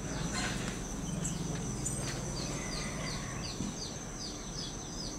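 Background ambience: a steady high insect trill, and from about halfway in a bird repeating short falling chirps about three times a second.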